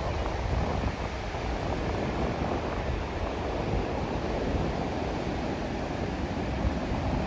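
Atlantic surf washing onto a sandy beach, a steady rushing noise, with wind buffeting the microphone as a low rumble.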